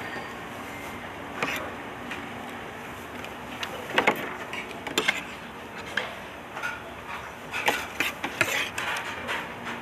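Spoon and fork clinking and scraping against a plate while eating: scattered sharp clicks, the loudest about four seconds in and a quick cluster near the end, over steady low background noise.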